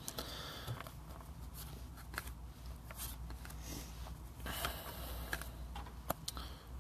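Trading cards being flipped through by hand: soft, irregular flicks and rustles of card stock.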